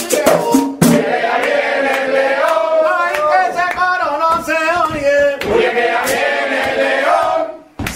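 A group of men singing together in chorus, almost without accompaniment, after a few sharp hand-percussion strokes in the first second. The singing fades and cuts off near the end.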